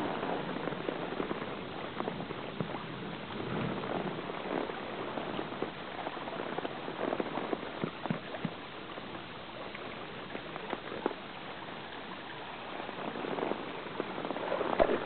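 Shallow creek water running and trickling over stones, a steady rushing noise, with a few small splashes in the water.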